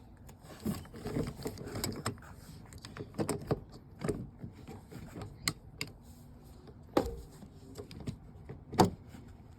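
Irregular clicks, rattles and knocks of winch wiring and small metal parts being handled, with a sharp knock about seven seconds in and the loudest one near the end.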